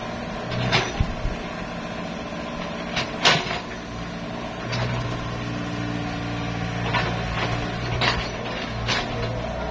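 Mini excavator's diesel engine running under hydraulic load as the bucket digs into soil, the engine note growing stronger about halfway through. Several sharp clanks from the bucket and arm cut through it.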